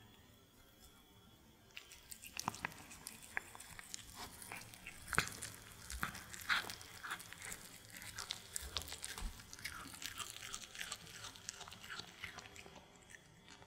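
A cat biting and chewing a sausage baked in dough, a dense run of small crunching clicks starting about two seconds in.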